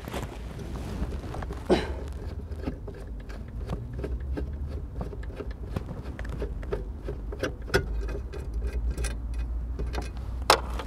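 Scattered small clicks and knocks of hand tools and parts being handled while dashboard console screws are undone, over a low steady rumble.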